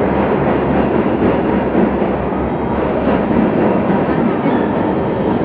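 Metro train running, heard from inside the passenger car: a loud, steady running noise from the wheels and rails.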